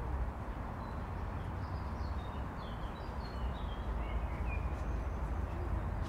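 Distant city traffic as a steady low rumble, with small birds giving a run of short high chirps from about one to five seconds in.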